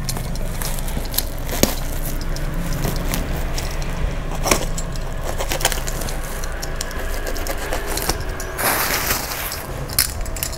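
Woven plastic sack and plastic-wrapped pajama bundles rustling and crinkling as they are pulled out of a tightly packed bale, with a few sharp snaps and a louder burst of crinkling about nine seconds in.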